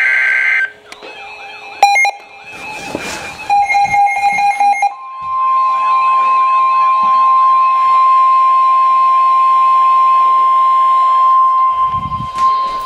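Emergency Alert System activation: the last burst of the warbling digital SAME header tones ends about half a second in, and about five seconds in the loud, steady single-pitch 1050 Hz National Weather Service warning tone begins and holds for several seconds.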